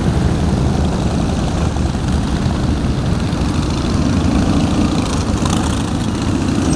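A procession of motorcycles, mostly large cruiser and touring bikes, riding past one after another, their engines blending into a loud, steady low drone.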